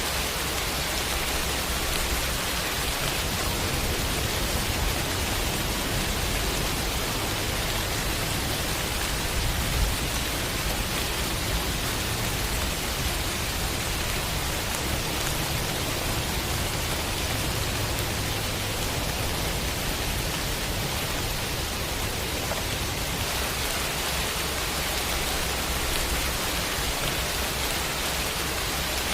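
Heavy rain falling steadily in a dense, even hiss, with a low rumble underneath for much of the time.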